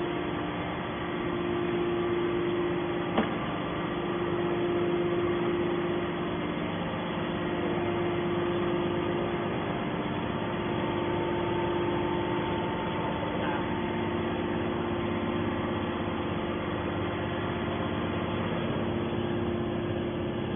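Small hydraulic scrap-metal baler's motor and pump running with a steady hum, and a single click about three seconds in.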